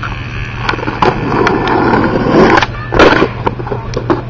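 Skateboard wheels rolling over pavement, the rough rolling noise building over a couple of seconds, then a loud clatter about three seconds in as the rider trips and the board hits the ground, with a few scattered clicks after.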